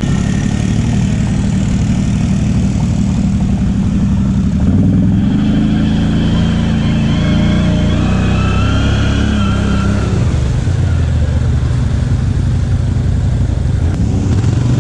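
Can-Am ATV engine revving hard under load while driven through mud, the pitch climbing about four or five seconds in and dropping back after about ten seconds.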